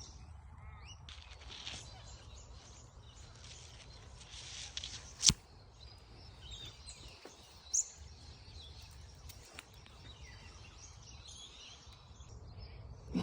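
Outdoor ambience: scattered bird chirps over a low steady rumble, with a sharp click about five seconds in and a smaller one a couple of seconds later.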